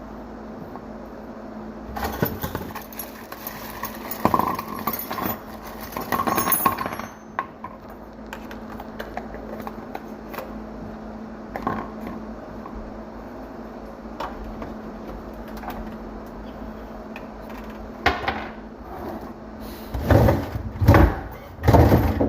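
Clinks, rattles and knocks of metal tools and plumbing parts being handled, over a steady low hum. Several louder, heavier bumps near the end.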